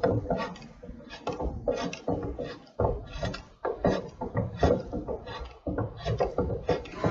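A new automotive A/C compressor being turned over by hand to work freshly added PAG oil through its moving parts: a run of irregular clicks and rubbing, several a second.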